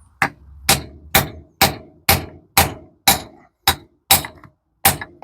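Hammer blows on a metal pipe used as a drift to drive a gearbox synchronizer onto its shaft: about ten sharp, briefly ringing metallic strikes, roughly two a second.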